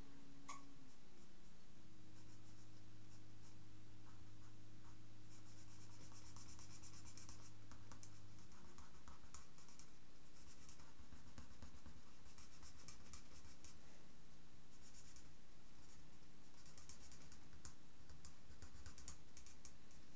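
Felt-tip pen drawing on paper: short scratchy strokes in several spells with pauses between, over a low steady hum.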